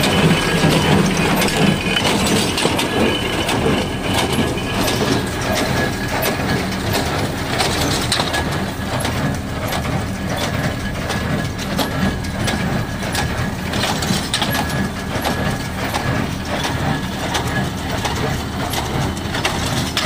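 New Holland BC5060 small square baler running off a tractor's PTO while baling straw: a steady mechanical clatter with repeated knocks from the plunger and gear drive, and the tractor engine running underneath.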